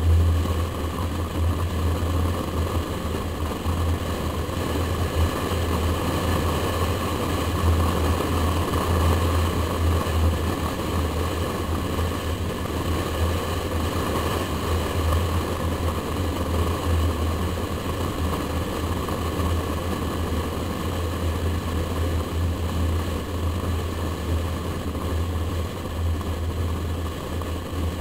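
Steady wind rumble and tyre and road noise from a moving car, picked up by an action camera mounted outside the car beside the door mirror.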